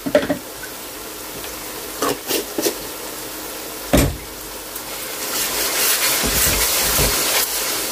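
Onions and ginger-garlic paste sizzling in an aluminium pan, with a few knocks on the pan in the first seconds, then a wooden spatula stirring and scraping as the sizzle grows louder from about five seconds in.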